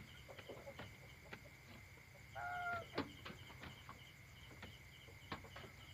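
Domestic hen on its night roost giving one short, soft call about two and a half seconds in, over a steady high-pitched hum and a few faint clicks.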